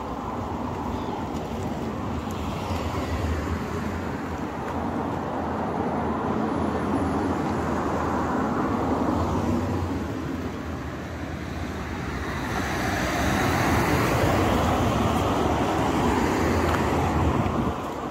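Road traffic: cars passing on the road, the tyre and engine noise swelling and fading, then swelling again louder in the second half and dropping off shortly before the end.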